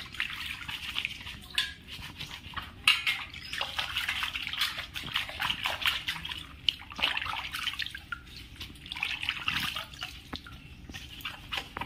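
Taro leaves being washed by hand in a steel bowl of water: irregular splashing and swishing, with water dripping and running off the leaves as they are lifted out.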